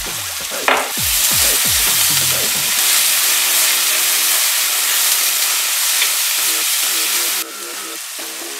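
Onions and cabbage sizzling as they fry in oil in a clay pot. The sizzle grows loud about a second in, just after a short clink, and drops sharply near the end. Background music with a low repeating pattern runs underneath.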